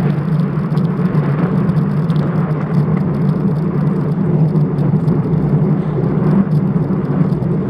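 Steady wind and road noise on a bike-mounted action camera while riding, a constant low drone with light rattling from the mount.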